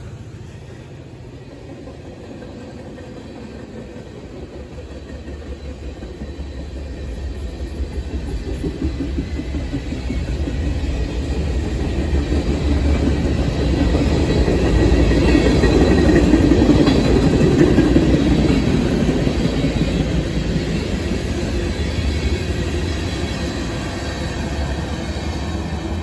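Union Pacific freight train's cars rolling past, the wheels running on the rails. The sound grows steadily louder, peaks a little past the middle, then eases slightly.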